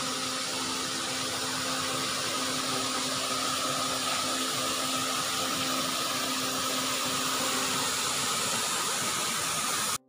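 A waterfall's small cascades spilling over limestone ledges into a pool, giving a steady, even rush of water.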